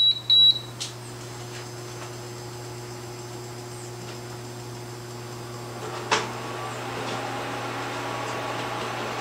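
Portable induction cooktop heating a pot: a couple of short high beeps as it is set at the start, then the steady hum of the cooktop and its fan, with one sharp click about six seconds in.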